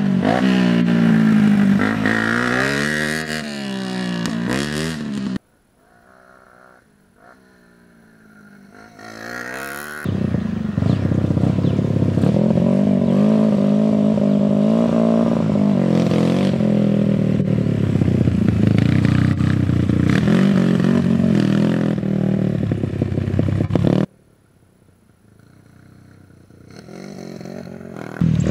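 Dirt bike engines revving close by, pitch rising and falling with the throttle. Twice the sound cuts off abruptly, about five seconds in and again near twenty-four seconds. Each time a fainter engine follows, growing louder as a bike approaches.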